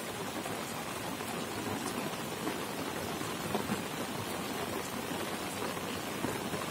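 Steady rain falling on a waterlogged ploughed field, a dense hiss of drops striking the puddled furrows.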